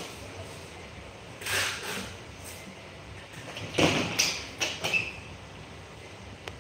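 A wooden door being opened and pushed shut: short scraping and knocking noises about one and a half seconds in and again around four seconds in.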